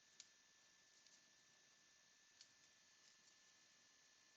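Near silence: room tone with two faint ticks, one just after the start and one past the middle.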